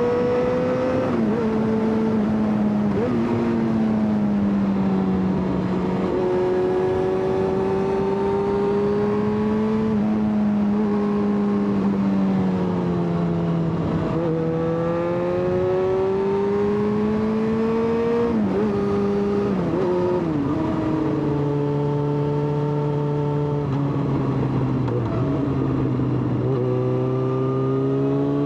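Yamaha XJ6's inline-four engine running hard on the move, its pitch climbing under throttle and stepping down at each gear change several times, over a steady rush of wind and road noise.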